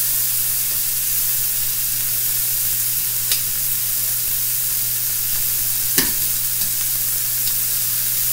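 Shrimp sizzling steadily as they fry in a stainless steel skillet, with metal tongs clicking against the pan twice as the shrimp are turned.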